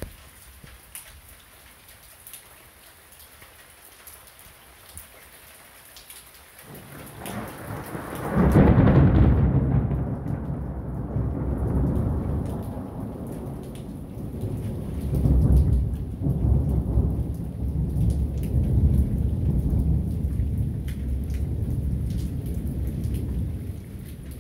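Steady rain with scattered drop ticks, then about seven seconds in a long roll of thunder builds up and rumbles on, swelling several times before fading near the end.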